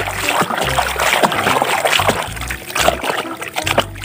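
Water splashing and sloshing in a plastic tub as a hand swishes a toy bus through it to wash off mud, in quick irregular splashes. A steady bass beat of background music runs underneath.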